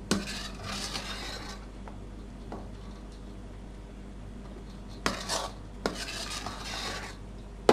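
Metal spoon stirring thick pear purée in an enamel basin, scraping against the bottom and sides in strokes: a run of strokes in the first second and a half, then more from about five seconds in.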